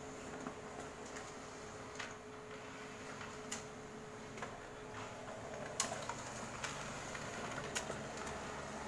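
HP LaserJet 3005dn laser printer running a print job: a steady mechanical hum broken by sharp clicks every second or so, growing louder about six seconds in as a page feeds through and comes out into the output tray.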